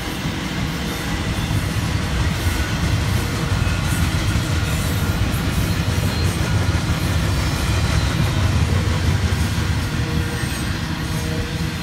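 Double-stack intermodal freight train's well cars rolling past at speed: a steady, loud rumble of steel wheels on rail with rattling and clicking, a little louder in the middle.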